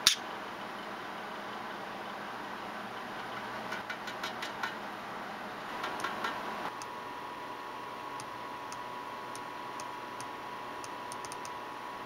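Budgerigar tapping its beak against a hard ledge: a sharp click right at the start, then two short runs of clicks and light knocks about four and six seconds in, followed by a few faint ticks over a steady hiss.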